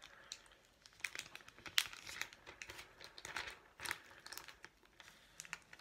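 Crinkling and crackling of a hydrogel face mask's packaging being handled, as irregular crackles that fill the middle few seconds.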